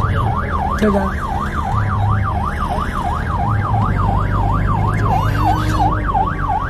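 Electronic siren on a vehicle, sounding a fast yelp that sweeps up and down about three or four times a second, over the low rumble of slow-moving traffic.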